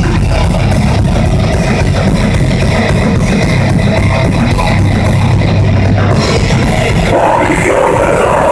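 Heavy metal band playing live: distorted electric guitars, bass and drums, loud and dense, with fast even strikes up top. The playing changes about six to seven seconds in, where the low end drops back.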